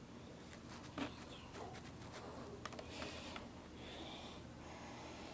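Small plastic toys being handled: faint rustling with a few light clicks, the clearest about a second in.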